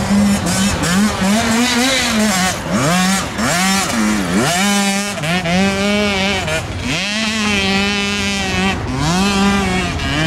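Dirt bike engines racing at full throttle, their pitch climbing and dropping sharply again and again as the riders shift and work the throttle.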